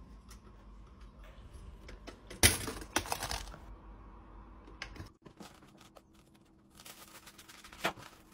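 Kitchen handling sounds at a white pop-up toaster: a loud click about two and a half seconds in, followed by about a second of rattling, then a smaller click, and another sharp click near the end.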